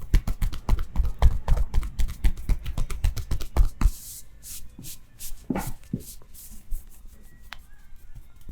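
Rapid percussive massage strokes, the barber's hands drumming on the body at about five or six thumps a second, stopping about four seconds in; softer rubbing and occasional light taps follow.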